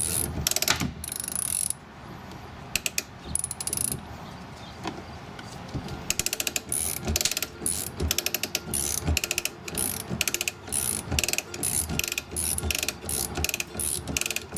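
Hand ratchet on a ShortCut auto glass cutting tool being worked back and forth, its pawl clicking in short runs of rapid clicks about twice a second as the cutting wire winds onto the spool. There is a pause of about a second near the start.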